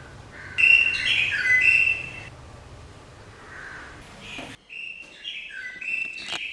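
A bird singing short, clear whistled notes that step up and down in pitch, in one phrase about half a second in and another from about two-thirds of the way through. A low hum runs underneath at first and stops abruptly, and there is one sharp click near the end.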